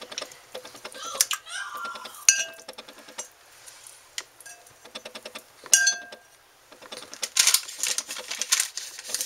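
Kitchen dishes and utensils clinking and knocking as marinated salmon fillets are lifted out of their dish onto a baking-paper-lined tray, with a few short ringing clinks and two sharp knocks, then a stretch of scraping about seven seconds in.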